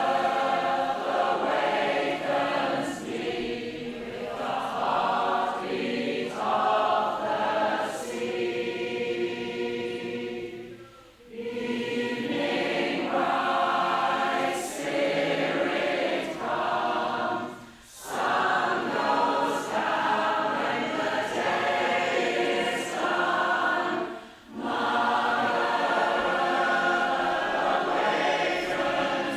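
Women's choir singing chords in harmony, with brief breaks between phrases three times.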